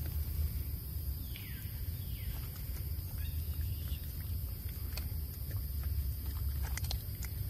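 Forest ambience: a steady high-pitched insect drone over a low rumble, with two faint falling squeaks between one and two and a half seconds in and scattered light clicks.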